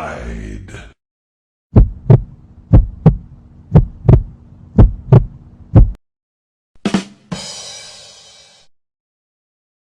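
Heartbeat sound effect: five slow double thumps, lub-dub, about one a second. About seven seconds in it gives way to a sharp hit followed by a ringing tone that fades out.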